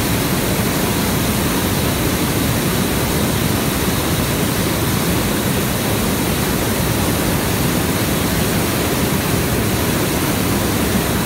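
Hot air balloon's propane burner firing continuously: a loud, steady rushing noise.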